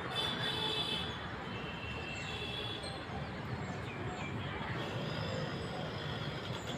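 Short high chirps, one burst near the start and another about two and a half seconds in, over a steady rumble of outdoor traffic noise.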